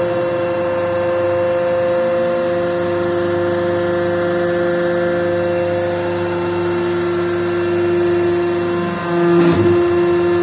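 Hydraulic briquette-forming press running with a steady machine whine. The whine drops to a lower, louder tone about nine seconds in, with a short burst of noise at the same point.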